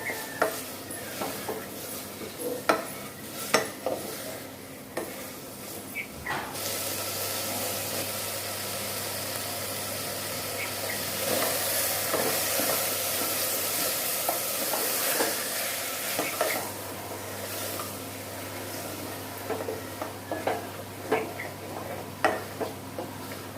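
A spoon stirring and scraping ingredients frying in oil in a pot, with repeated clicks of the spoon against the metal. For about ten seconds in the middle a steady sizzling hiss is louder than the stirring.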